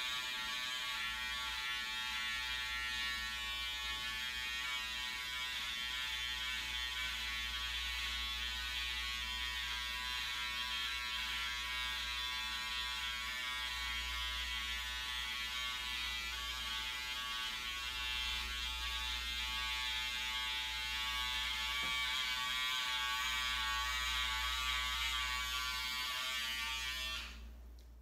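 Electric hair clippers buzzing steadily as they cut a man's close-cropped hair; the buzz fades out near the end.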